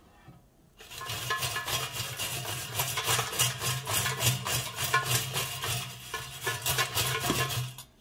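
Frozen chips rattling and scraping around in a Gourmia air fryer's non-stick basket as it is shaken by hand halfway through cooking: a rapid, scratchy rattle that starts about a second in and stops just before the end.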